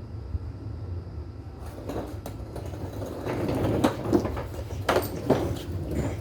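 Metal knocks and clanks with scraping, as of hand tools working against steel, starting a couple of seconds in, over a steady low rumble.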